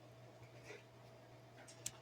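Near silence over a steady low hum, with a faint rustle and one sharp click near the end.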